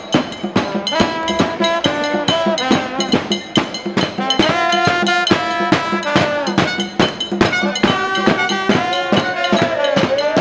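A fans' band of bass drum and trumpets playing: fast, steady drum beats with held trumpet notes over them, one note sliding down in pitch near the end.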